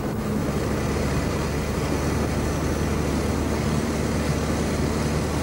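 Car engine and road noise heard from inside the cabin of a moving car: a steady low hum.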